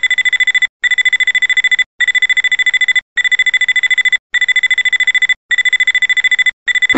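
Electronic wake-up alarm of a laser-target gun alarm clock going off: a high, rapid beeping, about ten beeps a second, in runs of roughly a second separated by short breaks.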